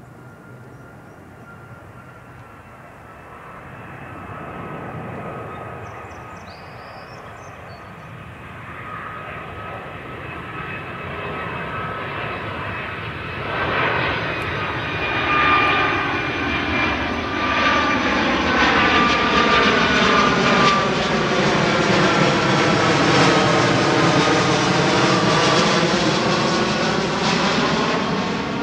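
FedEx cargo plane on landing approach passing low overhead: its engines grow steadily louder, with a steady whine, and become loud about halfway through, the noise taking on a hollow swoosh that sweeps down and back up as it passes over.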